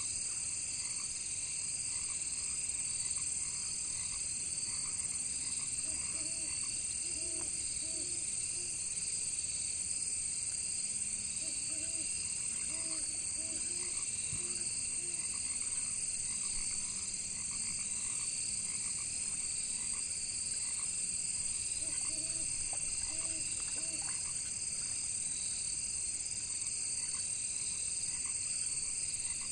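Frogs croaking in three runs of short, repeated calls over a steady, high-pitched chorus of crickets and other insects.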